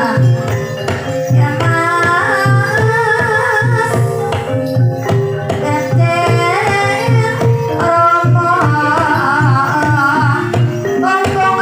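Ebeg dance music: a wavering sung melody over held pitched notes and a hand drum keeping a steady beat about twice a second.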